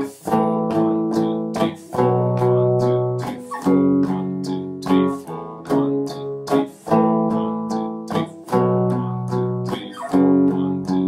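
Semi-hollow electric guitar playing two-note power chords in steady, slow downstrokes, cycling through C#5, A5, B5 and F#5. The fretting hand moves to each new chord an eighth note early, a syncopated push that gives the progression its rhythm.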